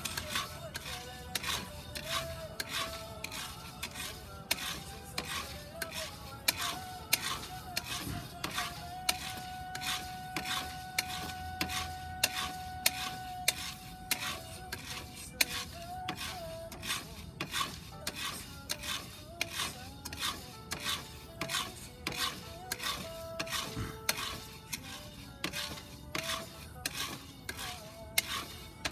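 Coffee beans being stirred with a wooden spoon in a round cast-iron pot during roasting: a steady, rhythmic scraping rattle about twice a second as the spoon sweeps the beans across the pot's bottom.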